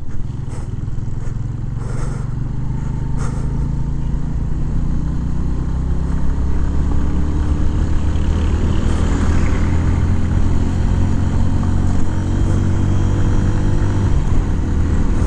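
Suzuki GS motorcycle engine running steadily under way, with wind and road noise. Its pitch rises slowly through the middle and falls back near the end.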